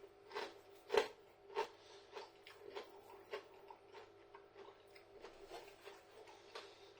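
Close-up chewing of a crispy mini duck pancake, a run of short crunches roughly every half second to second, the loudest about a second in, growing softer as it goes.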